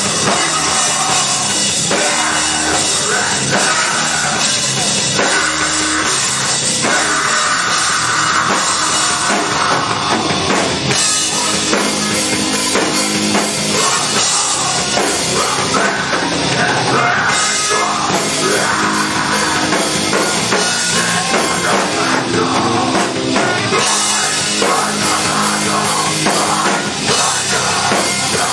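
Live heavy rock band playing loud and dense: drum kit, electric guitar and bass guitar, recorded from the crowd on a fan's camera.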